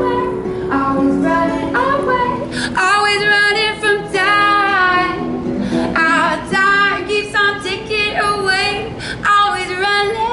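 A woman singing long held notes with a wavering pitch over a strummed acoustic guitar, in a live band performance. The guitar carries the first couple of seconds before the voice comes in strongly.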